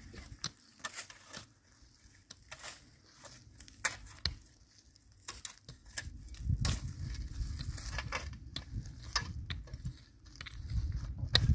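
Irregular crackling and snapping, like material being crushed or broken, with a low rumble coming in about six seconds in.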